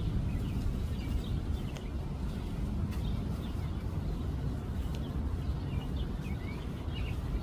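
Outdoor ambience: a steady low rumble, with many short, high chirps from small animals scattered throughout.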